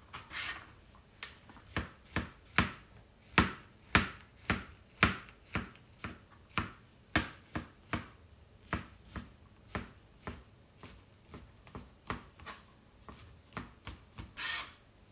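Kitchen knife chopping carrot and then shiitake mushrooms on a plastic cutting board: sharp knocks of the blade on the board, about two a second. A short, louder rasp comes near the end.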